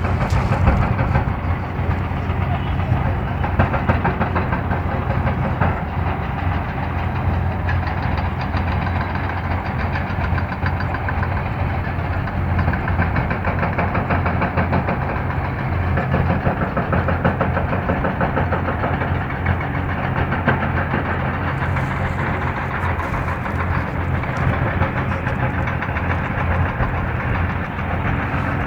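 Steady, continuous drone of running engines or machinery with a constant low hum, mixed with a murmur of voices.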